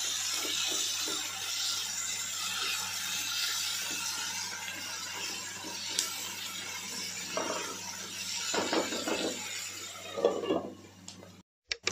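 Onions, tomatoes and cashews sizzling in a nonstick kadai while a silicone spatula stirs and scrapes through them. Near the end, a glass lid clinks down onto the pan.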